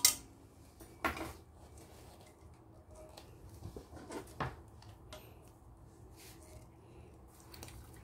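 A few light knocks and clinks of a stainless steel pot handled against a steel mixing bowl, one about a second in and a couple around four seconds in, with quiet in between.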